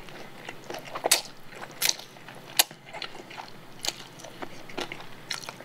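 A person eating chewy cold spicy noodles close to a microphone: slurping and chewing, with sharp wet mouth clicks every second or so.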